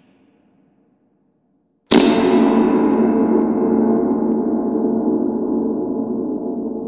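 A single sudden metallic clang about two seconds in, ringing out in several steady tones with a long, slowly fading echo.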